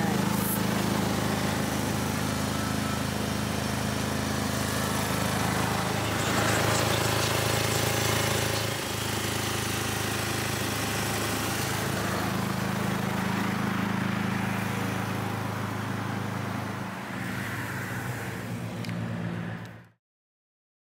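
Steady low hum of an idling vehicle engine with outdoor road ambience. The hum shifts in pitch about six seconds in and again near the end, then cuts off suddenly.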